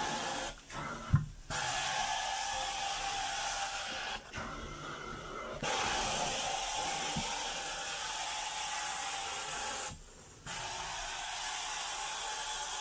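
Carpet-cleaning extraction wand hissing steadily as it sprays and sucks water through the carpet. The hiss cuts out briefly three times, about a second in, for over a second around the middle, and near ten seconds, as the wand changes stroke. A single thump about a second in is the loudest sound.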